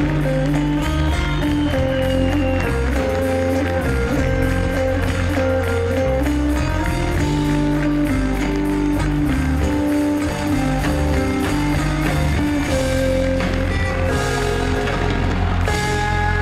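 Live rock band playing an instrumental passage with drum kit, electric bass and acoustic guitar.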